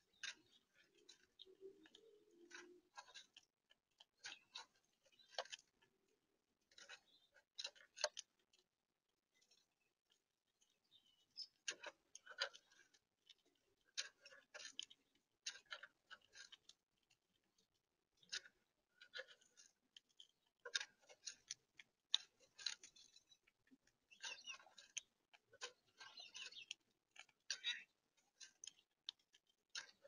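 Gray squirrel feeding right at the microphone: faint, irregular runs of small sharp clicks and crunches as it cracks and gnaws its food, with short silent gaps between runs.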